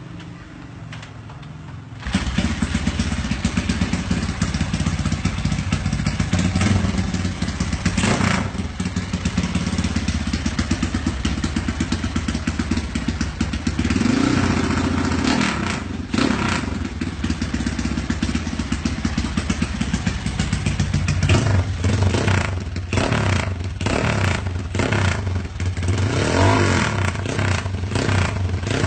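Motorcycle with an aftermarket performance exhaust, running loud from about two seconds in and revved in repeated blips, with quick throttle blips close together over the last several seconds.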